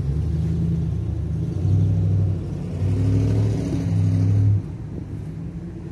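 Low hum of a motor vehicle engine running nearby, swelling in steps and dropping off sharply about four and a half seconds in.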